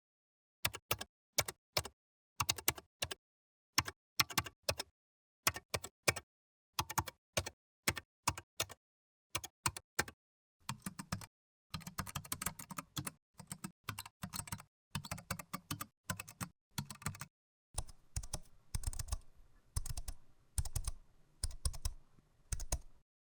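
Computer keyboard typing: short runs of key clicks with brief pauses between them, sparser at first, then faster and denser with heavier key thumps from about halfway through.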